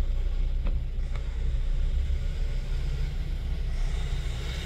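Heavy diesel trucks idling in a low, steady rumble, with two short knocks about a second in and a hiss building near the end.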